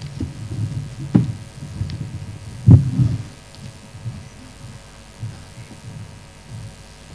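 Lectern microphone being handled and bumped: a run of low thuds with two loud knocks about one and three seconds in, then softer thumps over a faint hum.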